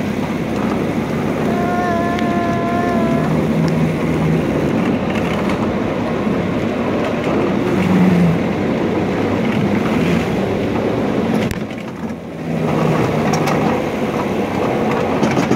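Miniature ride-on train running along its track: a steady rattling clatter of wheels and cars. A short steady tone sounds about two seconds in, and the noise briefly drops around twelve seconds.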